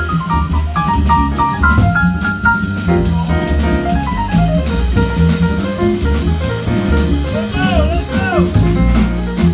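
Live big-band jazz with acoustic grand piano to the fore over walking double bass and drum kit with steady cymbal, and a few sliding, bent notes near the end.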